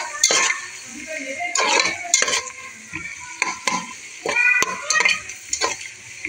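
Sliced onions frying in oil in a metal pot, stirred with a metal spatula: irregular scraping strokes against the pot over a sizzle, with a sharp metal click about four and a half seconds in.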